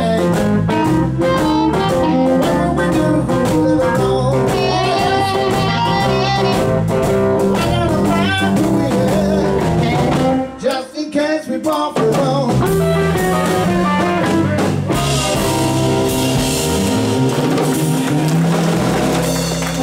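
Live blues band playing electric guitars over bass and drums, stopping for a moment about halfway with a few sharp accents, then coming back in. Audience clapping joins near the end.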